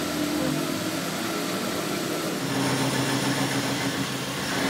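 Steady mechanical hum of running machine-shop machinery. The low hum grows fuller about halfway through.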